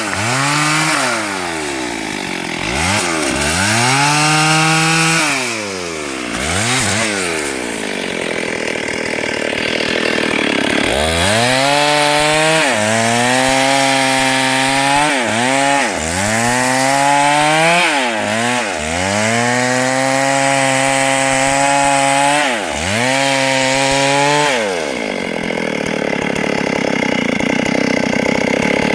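STIHL MS382 two-stroke chainsaw running at high revs and cutting hardwood. The throttle is let off and opened again about eight times, so the engine pitch drops and climbs back repeatedly. In two longer stretches the pitch fades into a rough, noisy rasp.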